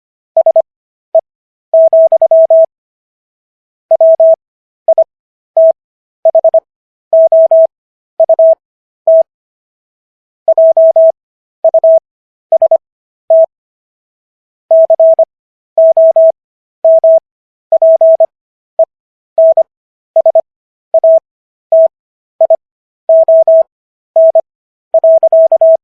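Morse code sent as a single steady tone keyed on and off in dots and dashes. Characters go at 25 words per minute, with Farnsworth spacing stretching the gaps so the overall speed is 15 words per minute, and longer pauses fall between words. It spells out the text of the US Constitution's Fifth Amendment.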